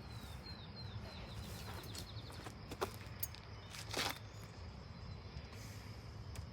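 Outdoor ambience with a steady insect drone, a bird calling a quick run of short falling notes in the first two seconds, and a few sharp clicks of handling, the loudest about four seconds in.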